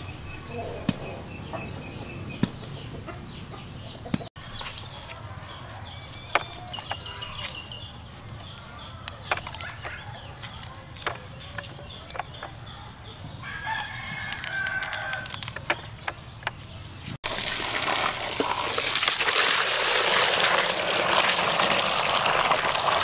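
Scattered sharp clicks and a rooster crowing, then, about three-quarters through, water poured hard into a plastic bucket of live eels: a loud, steady splashing rush.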